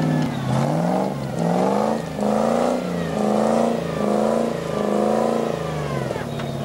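Range Rover off-roader's engine revved up and let fall again about six times in quick succession, roughly once a second, while the vehicle works through deep mud.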